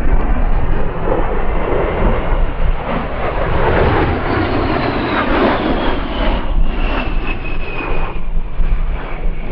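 USAF A-10 Thunderbolt II's twin TF34 turbofan engines as the jet passes: a loud, rushing jet noise over a deep rumble builds to a peak midway, and a high turbine whine falls in pitch as it goes by.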